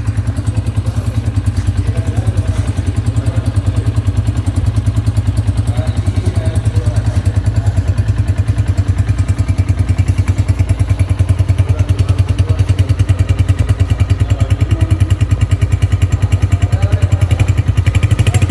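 Honda CG 125 single-cylinder four-stroke engine idling steadily with an even, rapid exhaust beat.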